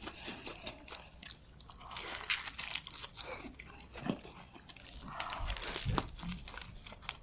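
Close-miked eating sounds: crunchy chewing of a crumb-fried ball stuffed with macaroni and cheese, with a bite into a burger near the end.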